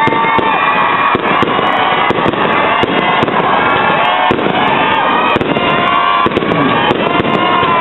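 Concert crowd screaming and cheering, many high voices gliding up and down over each other, with many sharp cracks throughout.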